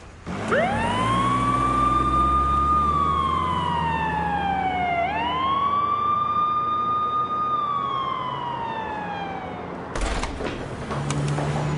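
Emergency vehicle siren wailing over a low vehicle hum: two long cycles, each rising quickly, holding a high note, then sliding slowly down. A knock and rustling follow near the end.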